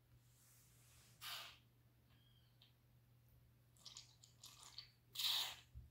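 Quiet room with a low hum, two short breaths about a second in and near the end, and a few small clicks around four seconds in as a small plastic doll is handled.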